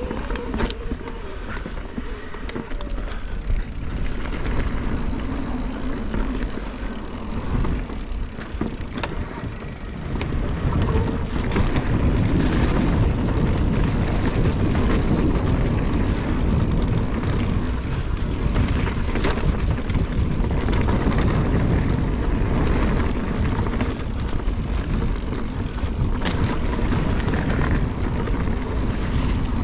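Wind rumbling on the microphone and a mountain bike's tyres rolling over a dirt trail, with scattered sharp knocks and rattles from the bike over rough ground. The rumble gets much louder about ten seconds in.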